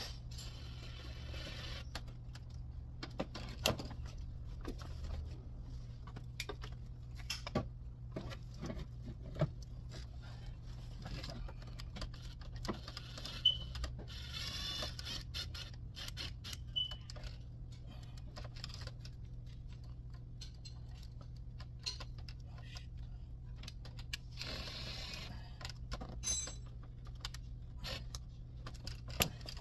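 Scattered light clicks, taps and knocks of hand work on car engine-bay parts, over a steady low hum.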